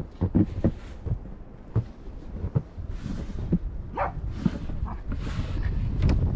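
A small dog giving a few short cries, the clearest about four seconds in, over wind rumbling on the microphone.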